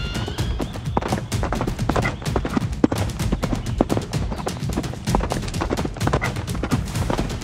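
A cartoon cow's moo falls and trails off in the first half second, then gives way to a quick, uneven run of hoofbeats as the cow trots, over background music.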